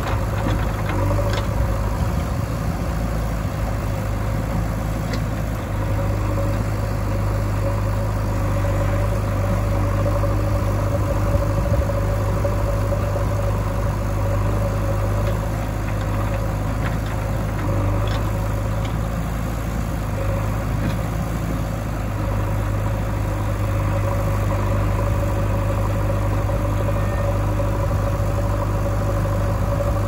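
Diesel engines of a JCB 3DX backhoe loader and a tipper truck running steadily while the backhoe loads soil into the truck's bed: a deep steady hum with a thin whine above it, swelling slightly now and then, and a few faint knocks.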